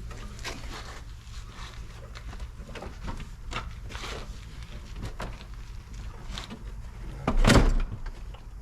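Scattered knocks, clicks and scraping as a vehicle's dashboard is manoeuvred and set into place, with one loud thump about seven and a half seconds in.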